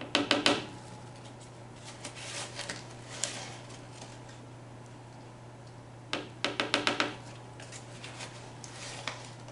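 Quarter-teaspoon measuring spoon knocking against the rim of a bowl in two quick bursts of about five taps each, a few seconds apart, with softer scraping between as cornstarch is scooped and shaken off. A steady low hum runs underneath.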